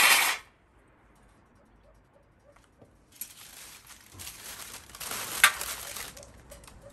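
Lumps of charcoal clattering, in a loud burst that stops just after the start. After a pause of about three seconds, charcoal shifts and scrapes on a stiff paper sheet as the sheet is folded up, with one sharp clink.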